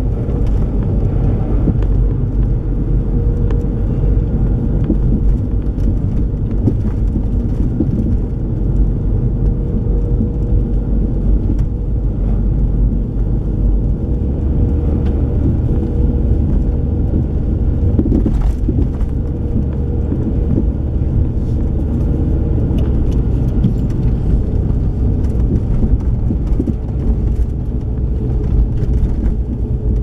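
Inside a car driving on a snow-covered road: a steady low rumble of engine and tyre noise with a faint steady hum.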